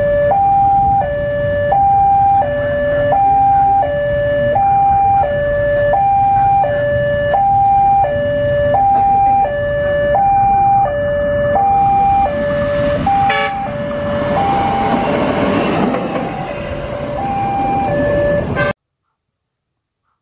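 Railway level-crossing warning alarm sounding a steady two-tone hi-lo wail, switching between two pitches about every 0.7 seconds. From about 14 seconds a rushing rumble builds as the rail inspection car (motis) passes. The sound cuts off suddenly nearly two seconds before the end.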